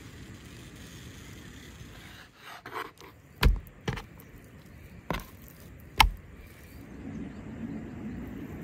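Knife cutting raw lamb fat on a wooden cutting board, with about four sharp knocks of blade and meat on the board in the middle.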